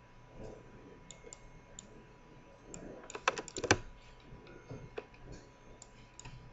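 Computer keyboard keystrokes: scattered single taps, then a quick run of several keys about three seconds in, as code is edited and the program is built and run.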